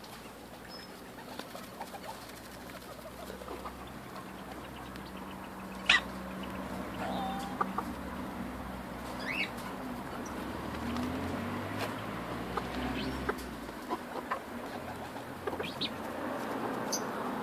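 Ducks pecking pellets from an open hand: scattered taps and clicks of bills, with a few short, rising bird calls. A sharp click about six seconds in is the loudest sound.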